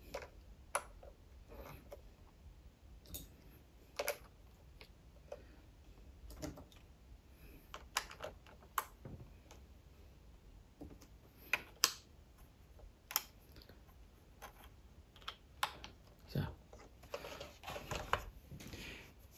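Irregular light clicks and taps of plastic BlueBrixx clamp bricks as a brick-built model car is handled and parts are pressed on, with a denser run of clicks near the end.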